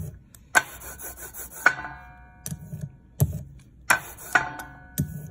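A hand brayer rolling back and forth over an inked printing block, the tacky ink giving a sticky, rasping hiss. Several sharp knocks come between the passes as the roller and block are handled, a few of them ringing briefly.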